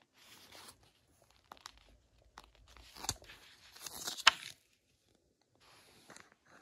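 Pages of a paperback comic book rustling and crinkling as they are handled and turned by hand: a series of short papery rustles, with two sharp crackles past the middle, the second the loudest.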